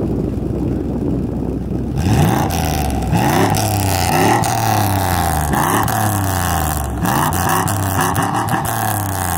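TVR Tasmin 350i's fuel-injected 3.5-litre Rover V8 idling, then from about two seconds in revved in a series of quick throttle blips, roughly one a second, each rising and falling in pitch.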